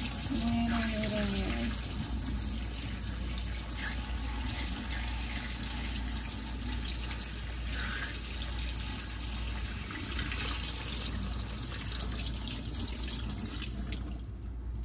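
Dirty water from upholstery cleaning being poured out in a steady splashing stream, stopping shortly before the end.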